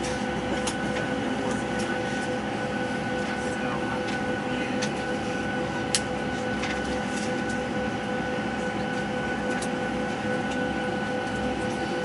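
Steady drone inside a moving vehicle: a low rumble with a few steady humming tones over it and scattered small clicks, one sharper click about six seconds in.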